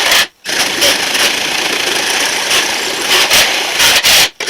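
Drill driving a hole saw through a running board's thin metal, cutting an access hole. The drill stops briefly just after the start and again near the end.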